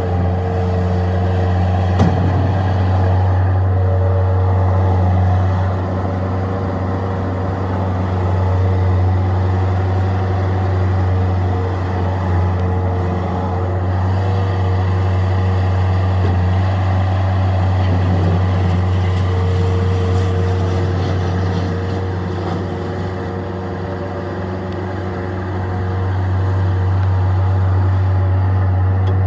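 Bobcat 753 skid steer loader's diesel engine running steadily at a constant speed, with one sharp click about two seconds in.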